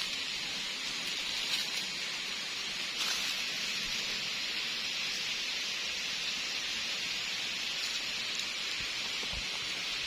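Steady hiss of running water from a shallow forest stream, with a faint thump near the end.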